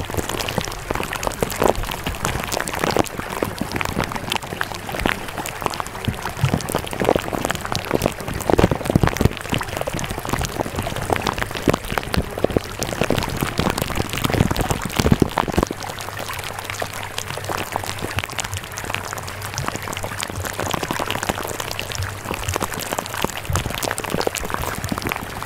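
Rain pattering: a steady hiss with a dense, irregular crackle of drop hits, a few louder ones standing out.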